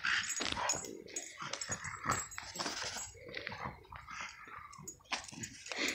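French bulldog making short, irregular dog sounds as it jumps up on its leash, with a few light clicks.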